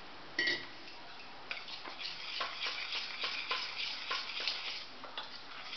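Metal spoon stirring gram flour and spices in a stainless steel bowl: one sharp clink about half a second in, then from about a second and a half a rapid run of clicks and scrapes of the spoon against the bowl, several a second.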